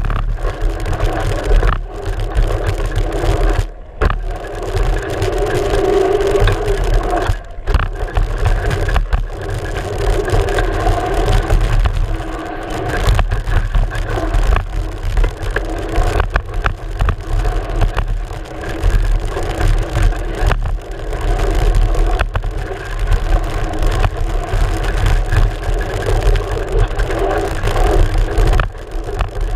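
Mountain bike rolling fast down a dirt trail, heard from a camera on the front fork: steady tyre and wind rumble with frequent knocks and rattles as the wheel hits rocks and bumps.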